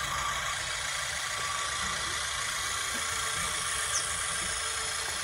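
Simulated diesel tractor engine idling steadily, played by the electronic sound unit of a radio-controlled scale Massey Ferguson 185 tractor.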